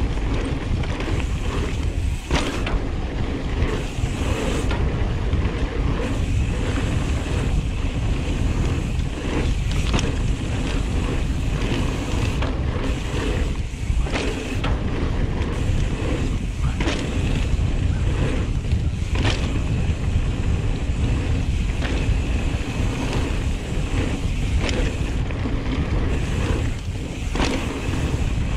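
Wind rushing over the camera microphone on a mountain bike riding fast along a dirt trail, with the tyres rolling on dirt and frequent short knocks and rattles from the bike over bumps.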